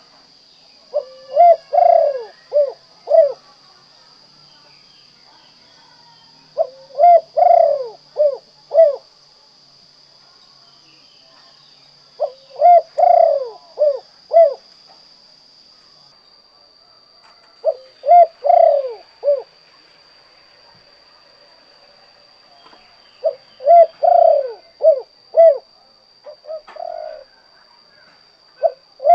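Spotted dove (tekukur/derkuku) cooing its 'kuk 2' song: a phrase of about five low coos, one longer in the middle, repeated about every five and a half seconds. A faint steady high whine runs underneath.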